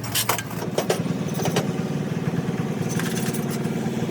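An engine running steadily, setting in about half a second in, with several sharp metallic clicks in the first second and a half.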